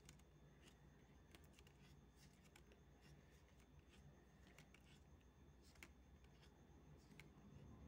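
Faint, irregular soft clicks and rustles of trading cards being slid one by one off a stack by hand.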